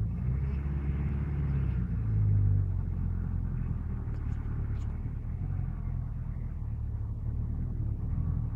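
Off-road trials vehicle's engine running with a low rumble, swelling briefly about two seconds in.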